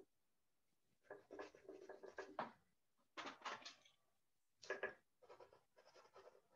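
Faint rubbing and scratching on a sketchbook page in a handful of short bursts, from a kneaded eraser and a pencil being worked over the drawing's lines to soften them.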